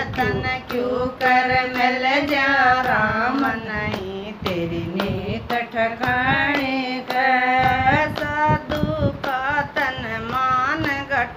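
Women singing a Haryanvi bhajan, drawing out the melody, with hand claps keeping a steady beat about twice a second.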